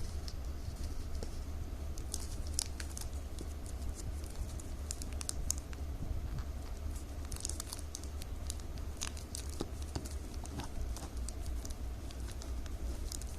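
Plastic strips cut from milk powder bags crinkling in irregular crackles as they are handled and woven, over a steady low hum.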